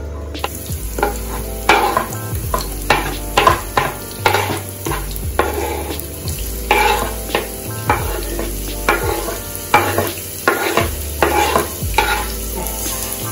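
A wooden spoon scraping and knocking repeatedly across a bamboo cutting board as sliced onion, scallion and sweet pepper are pushed off it into hot cooking oil, where they sizzle.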